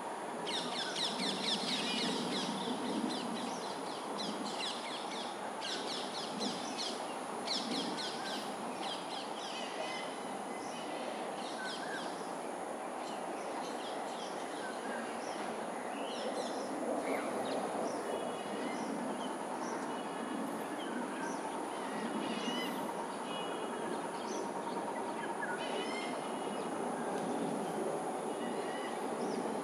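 Crows cawing in repeated bursts, with other bird calls, over steady background noise and a constant high hiss. The calls are densest in the first several seconds and come in spaced series later.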